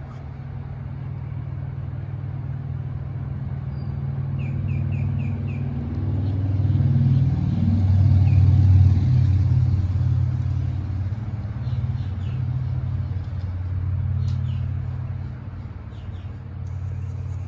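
A steady low motor rumble that swells to its loudest about eight to nine seconds in, then eases off.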